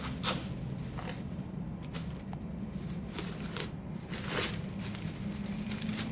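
Tissues being rustled and handled: a handful of short, soft scuffing rustles, the loudest about four and a half seconds in, over a steady low hum.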